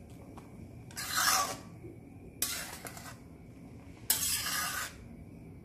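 Flat metal spatula scraping across an iron kadhai three times while stirring grated carrots in milk, each stroke a short rasp.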